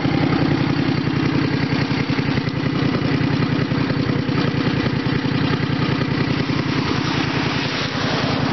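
Lawn tractor's small engine running steadily at high RPM on the hand throttle, somewhere around 4,000 RPM.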